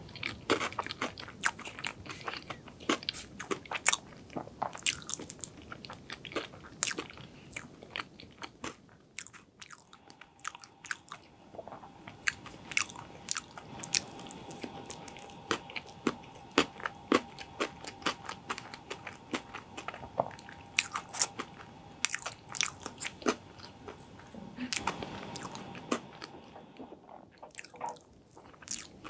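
Close-miked chewing of moist chocolate layer cake with cream-cheese frosting: a steady run of wet smacks and sharp mouth clicks at an irregular pace.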